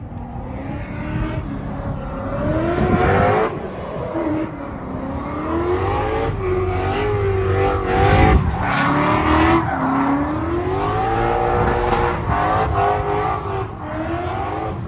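Car engine revving hard, its pitch climbing and dropping again several times, with a louder burst about eight seconds in.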